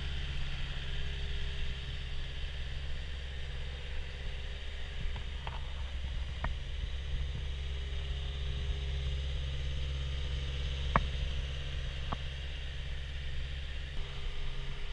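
CAT 289D compact track loader's diesel engine idling steadily, with a few sharp clicks over it.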